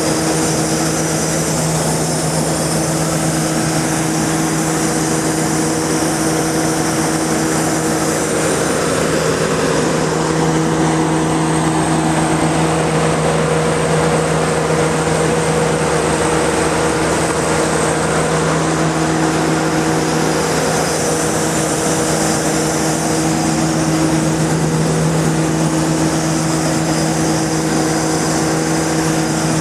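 Mortar pump spraying machine running steadily: a continuous mechanical drone with a constant hum.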